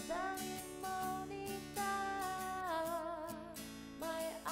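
Background music: an instrumental stretch of a gentle acoustic-guitar love song, with held notes and a wavering melody line over the plucked guitar.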